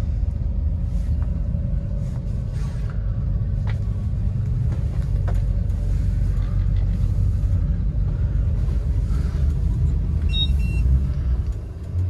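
Twin 250 hp Yamaha outboards running, a steady low rumble heard inside the boat's cabin as they push the boat sideways. A short electronic beep sounds about ten and a half seconds in.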